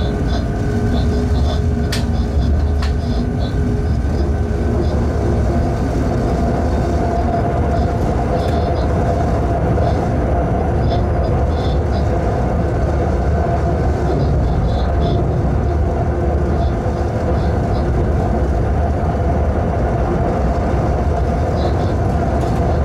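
Electric locomotive running light at speed, heard from inside the cab: a steady low rumble with a few steady tones over it, and a couple of sharp clicks about two seconds in.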